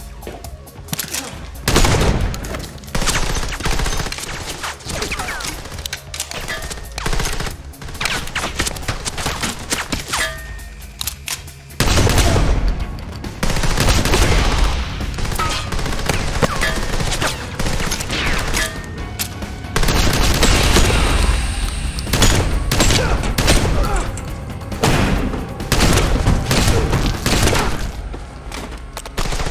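Movie gunfight sound: rapid, repeated gunshots, shotgun blasts among them, with a film score underneath. The firing is sparser in the first part and grows louder and denser from about twelve seconds in.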